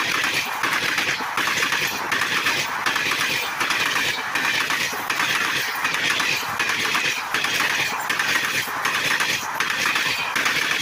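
Passenger coaches of an express train passing at speed: a steady rush of wheels on rail with a regular clatter about every three-quarters of a second.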